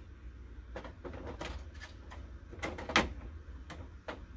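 Plastic clicks and clacks of a laser printer's covers and parts being handled and pulled at, with one sharp knock about three seconds in.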